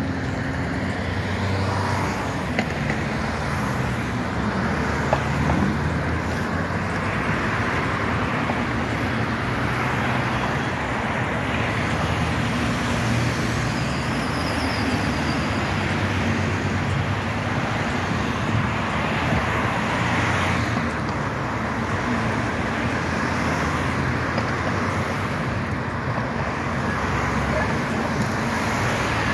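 Busy city road traffic: cars and a van passing close by one after another, a steady mix of engine and tyre noise.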